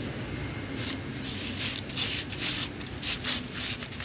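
Feathers being pulled by hand from a wet duck carcass: a quick run of short plucking strokes, several a second, starting a little under a second in.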